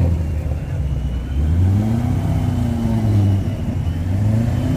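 A car engine revving gently, its low rumble rising in pitch and falling back, twice.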